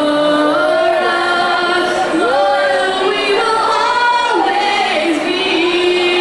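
A crowd of high school students singing their school alma mater together in a gymnasium, in long held notes that slide from one pitch to the next.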